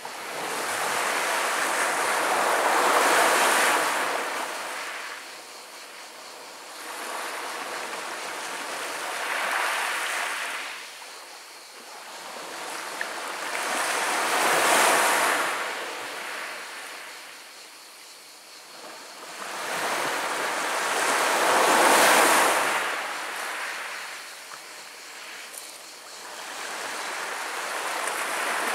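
Small Mediterranean waves washing up over a pebble beach, each one swelling into a rushing hiss and then draining back, about every six seconds.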